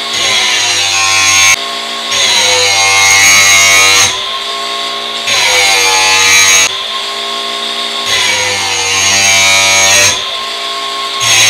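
Cordless angle grinder grinding the cutting edge of a steel lawn mower blade to sharpen it. The motor's whine rises and sags, getting louder and then easing off in passes of about two seconds as the disc is worked along the edge.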